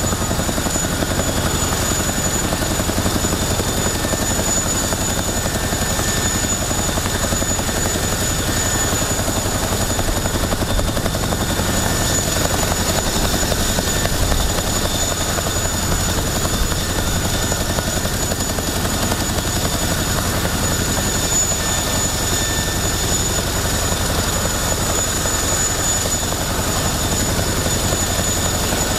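Boeing CH-47 Chinook's twin Lycoming T55 turboshaft engines running steadily, with a constant high turbine whine over a low rumble.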